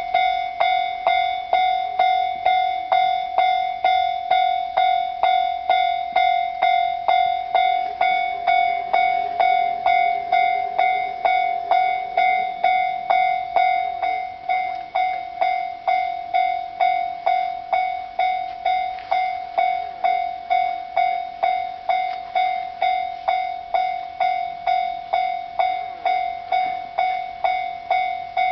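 Japanese railway level-crossing warning bell ringing steadily, about two electronic dings a second, signalling an approaching train. An E233-series commuter train runs through the crossing beneath the bell partway through.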